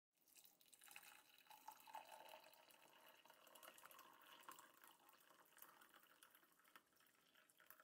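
Water poured in a thin stream into a glass mug, filling it over pieces of roasted balloon flower root to steep as tea. The sound is faint.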